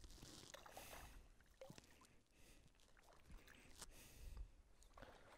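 Near silence: faint handling noise with a few soft clicks.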